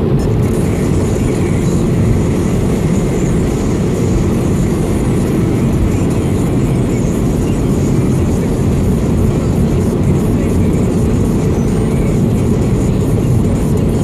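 Steady low road and engine noise inside a car's cabin while cruising on a motorway, even throughout with no distinct events.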